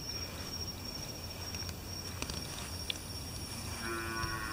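Crickets trilling steadily in the evening, with a cow starting to moo near the end.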